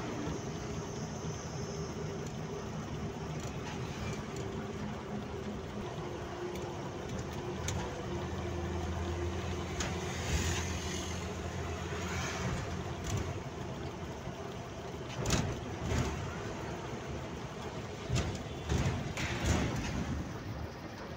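Steady running noise of a moving road vehicle, with a low engine hum and road and wind noise. There are several brief louder surges in the second half, most near the end.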